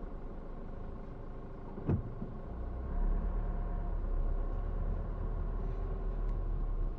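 A car driving slowly, heard from inside its cabin: a steady low engine and tyre rumble, with a single thump about two seconds in, and the rumble getting louder from about three seconds in.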